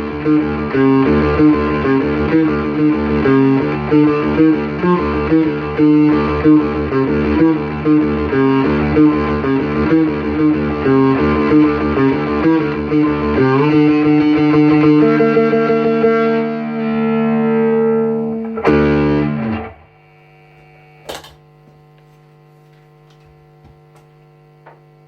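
Fretless bass guitar played through an amp with distortion effects: a fast, even riff, then longer held notes, ending on a note that slides down in pitch. The playing then stops abruptly, leaving a steady amplifier mains hum and a single click.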